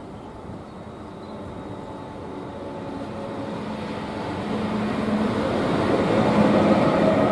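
Train approaching, its steady rumble and hum growing steadily louder.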